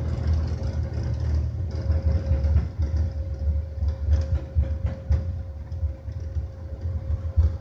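Airbus airliner rolling out on the runway just after an automatic landing, heard from the cockpit: a loud, uneven low rumble from the wheels and engines, with a steady hum and irregular knocks as the wheels run over the runway.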